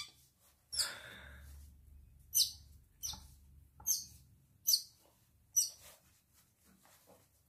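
Baby otter chirping: five short, high-pitched, falling squeaks, roughly one every 0.8 seconds, after a brief rustle about a second in.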